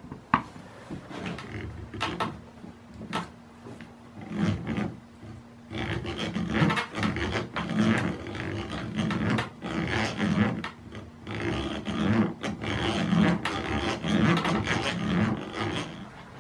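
A few light clicks and taps of small metal parts. Then, from about six seconds in, the restored 1930s Goodell-Pratt hand drill is cranked to bore a bit into a wooden board: a rasping grind of the bit cutting wood and the gears turning, swelling and easing about once a second with each turn of the crank.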